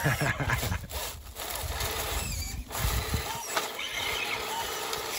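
RC scale crawler (Rochobby Willys Jeep) climbing a rut, its small electric motor and gearbox whining in uneven spurts, easing off briefly about a second in and again near the middle.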